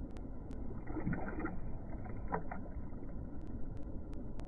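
Faint water lapping and light splashing at the surface as a hybrid striped bass (wiper) is released by hand, with a few small splashes about one and two seconds in.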